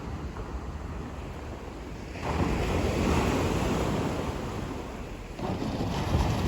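Sea waves breaking on the shore, a surge of surf about two seconds in and another just after five seconds, with wind rumbling on the microphone throughout.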